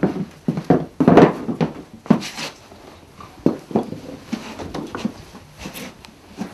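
Irregular knocks, thumps and rustles of wooden things being handled and set down on a floor.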